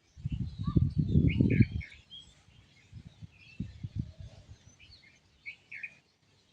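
Small birds chirping and twittering throughout, many short calls. A loud low, fluttering rumble covers the first two seconds, and a few shorter low thumps come later.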